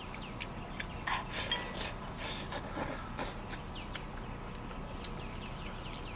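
A person eating saucy braised meat with chopsticks: wet chewing and sucking sounds, loudest between about one and three seconds in, with chopsticks clicking against the bowl. Rapid short chirps run on in the background.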